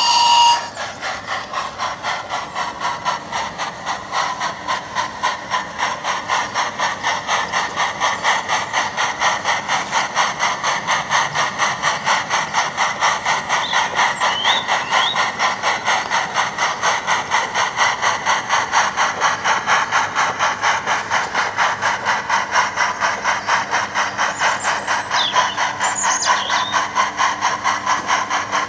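Model steam locomotive's onboard sound card playing a steady steam chuff through a small speaker as the loco runs, about three to four even beats a second. A sustained tone cuts off just after the start.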